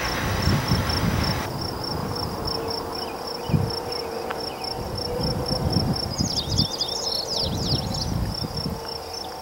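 An insect chirping in a steady, even pulse, about three chirps a second, with a short burst of quick bird chirps about six seconds in. An uneven low rumble runs underneath, with a single knock near the middle.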